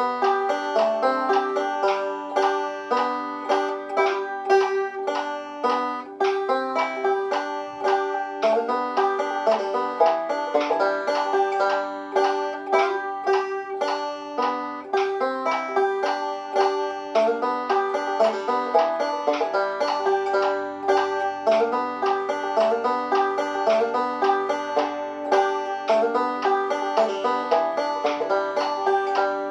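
Banjo played solo: a steady, even run of quickly picked notes.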